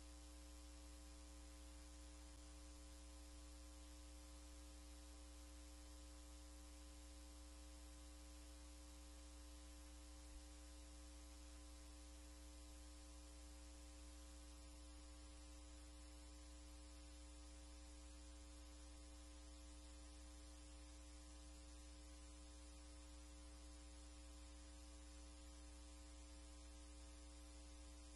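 Near silence with a faint, steady electrical hum and no other sound.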